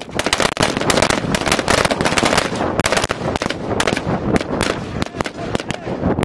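Rifles firing on a range: rapid, irregular shots from several weapons, a few a second and overlapping, each with a short echo.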